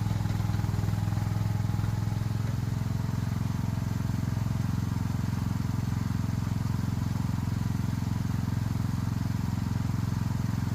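An engine running steadily at an even speed, a low constant hum with rapid regular pulsing.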